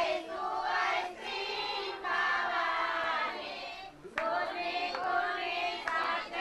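A group of women singing a devotional song together, unaccompanied, with short breaks between lines.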